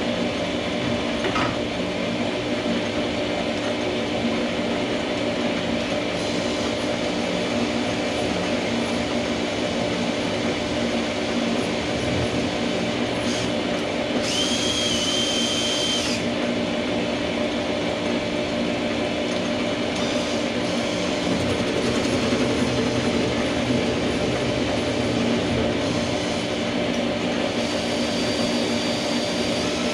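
Small bench metal lathe running steadily while facing a part, a steady mechanical hum, with its cross slide fed by a cordless drill turning the handwheel. A brief higher whine rises about halfway through.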